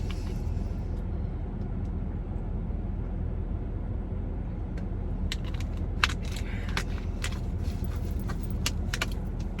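Steady low hum of a room air conditioner, with a scatter of small clicks and taps from about halfway through.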